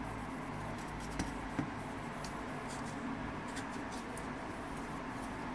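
Cloth wiping the rollers and plastic frame of a laser printer fuser unit: soft scratchy rubbing with small clicks over a steady low hum.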